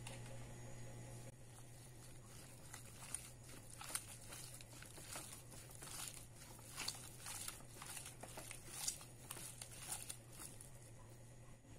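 A gloved hand mixing raw mutton pieces with spice powders in a bowl, making faint, irregular handling strokes that start about a second in. A low steady hum runs underneath.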